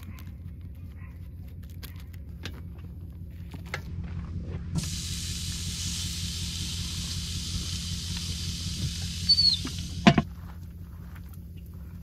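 Steak sizzling on the hot grate of a Weber Q1200 propane grill, a steady hiss that starts suddenly about halfway through and cuts off about two seconds before the end. A couple of sharp clicks come near the end, the loudest sounds here, with lighter handling clicks before the sizzle.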